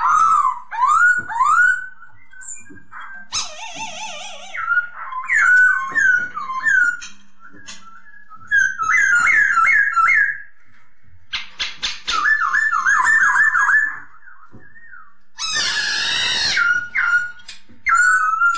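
Poksay hongkong, a laughingthrush, singing: loud whistled phrases of quickly repeated rising notes, broken twice by a harsh, scratchy chatter.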